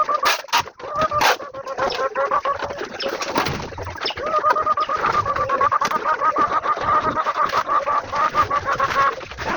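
Chickens clucking, one bird keeping up a rapid, pulsed run of clucks from about four seconds in until just before the end. In the first second or so there are a few sharp knocks and scrapes from the manure shovel working the litter.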